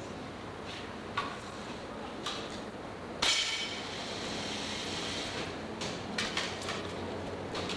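Air rifle shots in an indoor range: scattered sharp cracks. The loudest comes about three seconds in and rings on briefly. A steady background hiss runs under them.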